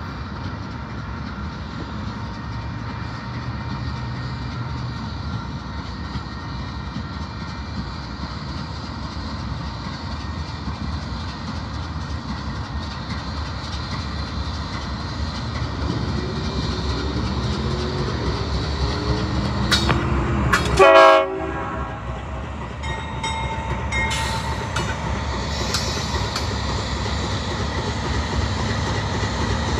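Union Pacific freight train's diesel locomotives approaching and passing close by, their engine rumble growing louder over the second half. A single short, loud horn blast sounds about two-thirds of the way through, followed by the steady sound of the locomotives and wheels rolling past.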